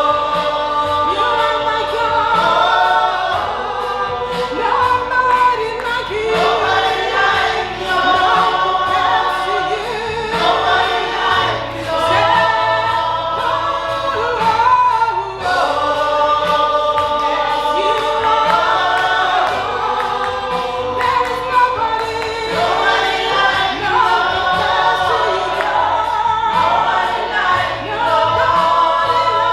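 Gospel choir singing a worship song with held, wavering notes over a steady beat.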